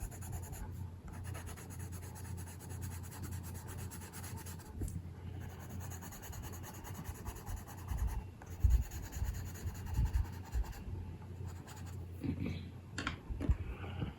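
Watercolour pencil rubbing and scratching on paper in steady colouring strokes, over a low steady hum, with a few soft bumps in the second half.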